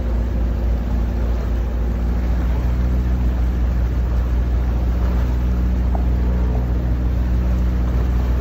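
Sailing yacht's inboard engine running steadily under way, a low drone with wash and wind noise; its note changes slightly about two seconds in.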